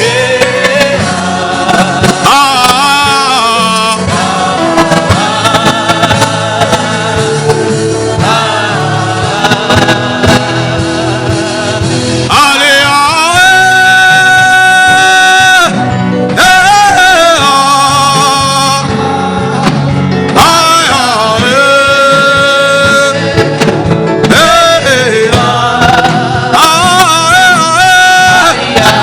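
Gospel music: a sung vocal line over instrumental backing, with long held notes about halfway through and again a little later.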